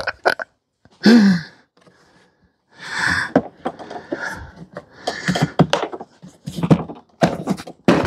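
Hands fitting the plastic air-cleaner cover onto a Briggs & Stratton mower engine: a run of clicks, rattles and scraping of plastic parts through the second half. About a second in there is a short, loud low sound falling in pitch.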